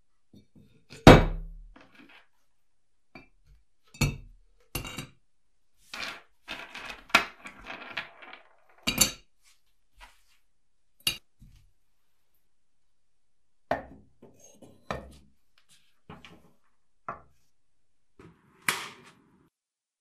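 Pieces of brass scrap clinking and knocking against a metal crucible and a wooden workbench as they are loaded in by hand. Separate sharp clinks and knocks, the loudest about a second in, with a quick run of clinks between about six and nine seconds.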